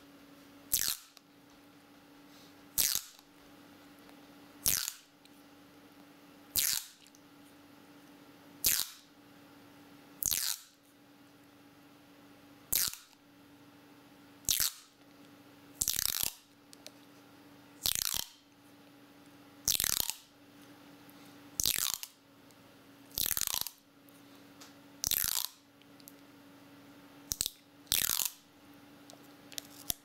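Adhesive tape pulled off a roll in short rips, one roughly every two seconds, over a faint steady hum.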